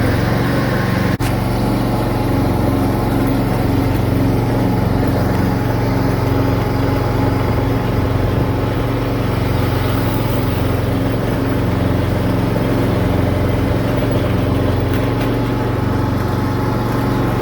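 John Deere F525 mower's warm engine running steadily, with a slow, even pulsing in its low hum. A short click comes about a second in.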